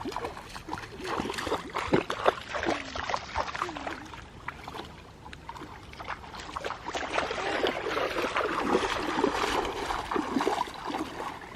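Water splashing and trickling as people wade and swim, with clicks of small splashes and faint voices in the background.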